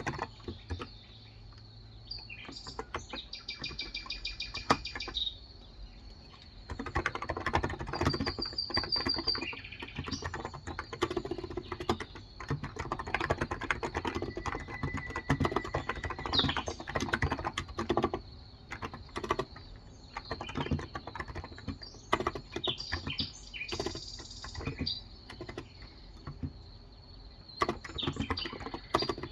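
Typing on a Cox Endeavor tenkeyless keyboard with 35 g electrostatic capacitive switches: a run of soft keystrokes, sparse for the first few seconds, then fast and dense. Birds chirp in the background every few seconds.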